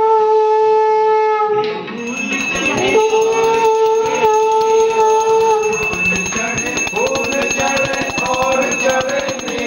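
Conch shell (shankh) blown in two long, steady blasts. The first ends about two seconds in; the second starts with a short upward swoop and runs from about three to six seconds in. From about two seconds in, a fast, even rhythmic clatter plays behind it, and voices join in near the end.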